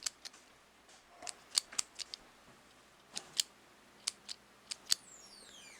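Small metal parts of a fidget pen clicking as they are handled: the magnetic metal spinner ring is worked along the pen's shaft. A dozen or so sharp clicks come at uneven spacing, then a brief sliding scrape falls in pitch near the end.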